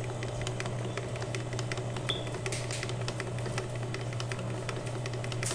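Electric stand mixer running steadily with a low hum, its beater turning thick cake batter in a stainless steel bowl, with many light irregular ticks.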